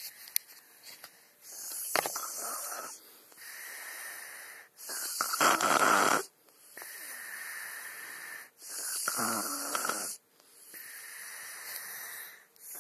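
Snoring: noisy breaths in and out every second or two, with short pauses between, one breath about halfway through louder than the rest.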